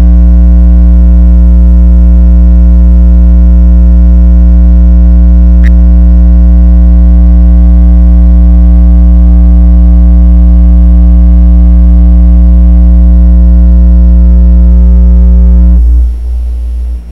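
Loud electronic synthesizer drone: many held tones stacked over a heavy deep bass, with a fast pulsing in the low range and a single short click about six seconds in. Near the end the upper tones cut out suddenly, leaving a low rumble that stops.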